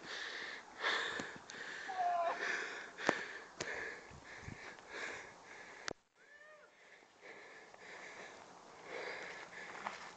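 A person panting hard after running, breaths coming about once a second, with a few sharp knocks and clicks mixed in. The sound almost cuts out for a moment about six seconds in.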